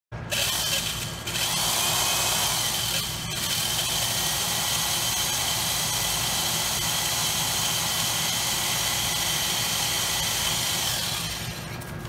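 Power drill running at a steady speed on a wooden pedal block, winding down near the end.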